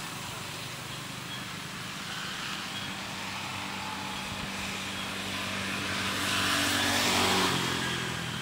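A motor vehicle's engine humming steadily in the background, with a swelling hiss that grows louder near the end as it passes and then eases off.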